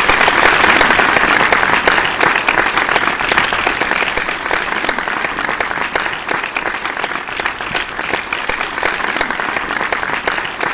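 Audience applauding: dense clapping that slowly grows quieter.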